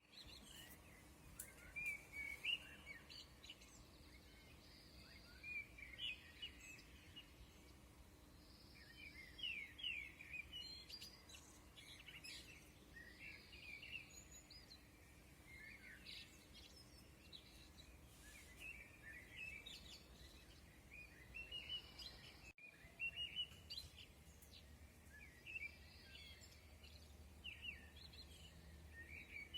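Birds chirping and twittering in quick clusters of short, high calls, over a faint steady low hum.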